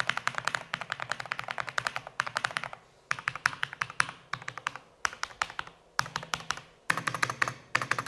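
Typing on a Dareu A104PRO full-size mechanical keyboard, the earlier version with silicone dampening, fitted with Snow linear switches: fast runs of keystrokes broken by short pauses.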